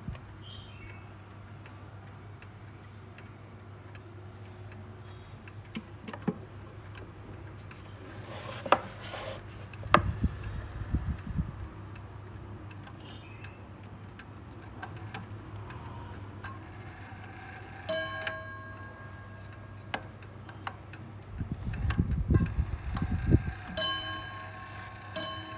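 Japanese wooden mantel clock's pendulum movement ticking steadily. In the last third a gong is struck a few times and each strike rings on as the clock strikes the hour, with a few soft knocks of handling.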